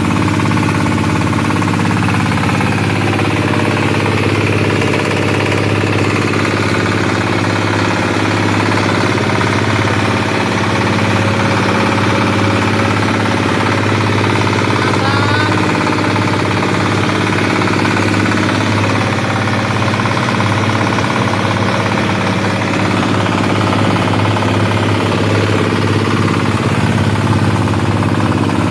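Waste-sorting and shredding machine running steadily with a loud, even mechanical hum, separating plastic from organic waste and crushing the organic waste.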